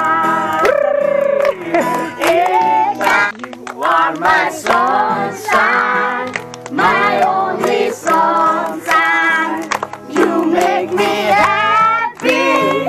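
Children and a man singing along to a strummed acoustic guitar, with the children clapping their hands.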